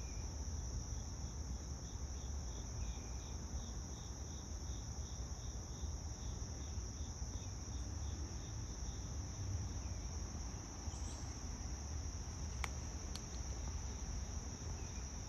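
Steady high-pitched insect trilling over a low background rumble, with one light click near the end.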